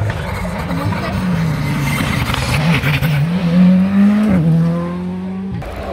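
Rally car's engine revving hard as the car drives past close by, its pitch climbing and dropping several times with gear changes. It is loudest a little past the middle, then settles to a steadier, lower note.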